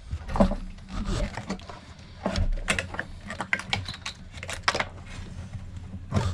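Irregular small clicks, taps and rattles of plastic fuel-line fittings and the fuel pump module being handled and pushed into place.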